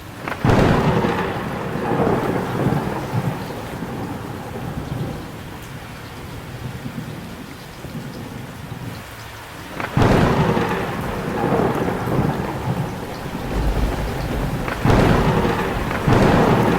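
Thunderstorm with steady heavy rain. Sudden loud thunderclaps come about half a second in, again at about ten seconds, and twice near the end, each trailing off into a long rumble.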